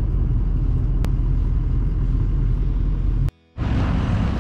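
Steady low rumble of a pickup's 6.0 diesel engine, heard from inside the cab. It breaks off for a moment about three seconds in, then picks up again.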